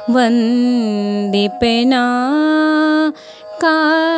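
Woman singing a devotional bhajan, drawing out long held notes that glide between pitches over a steady drone tone, with two short breaks for breath, the longer one about three seconds in.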